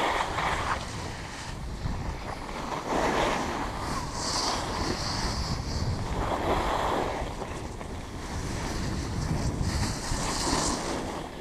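Wind rushing over the microphone of a moving skier, with the hiss and scrape of skis carving on packed snow swelling every few seconds with each turn.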